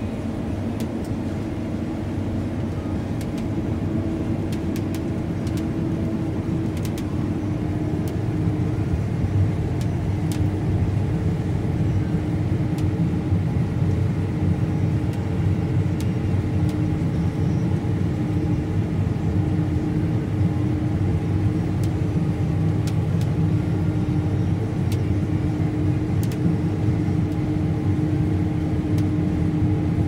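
John Deere S780 combine running steadily while harvesting soybeans, heard from inside the cab: a constant drone of engine and threshing machinery with a steady hum, growing slightly louder over the first several seconds, with a few faint ticks.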